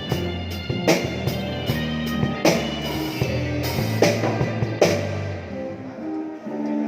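Rock-style music with a drum kit, bass and guitar: a steady drum beat over held bass and chord notes. The drums stop about five seconds in, leaving sustained notes ringing.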